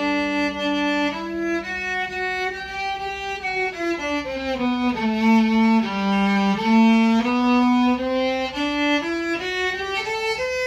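Old Japanese electric violin bowed in a slow melody of held notes, with two notes sounding together at the start, the line stepping down in pitch around the middle and climbing back up near the end.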